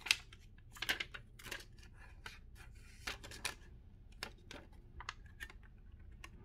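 Light, irregular clicks, taps and short scrapes of plastic and glass being handled: a tempered-glass screen protector and its clear plastic alignment tray, about a dozen small knocks spread out over several seconds.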